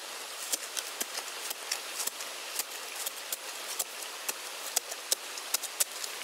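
Metal spade blade on a long wooden handle digging into dry soil: irregular sharp scrapes and clicks as the blade bites and earth crumbles, several a second, over a steady high hiss.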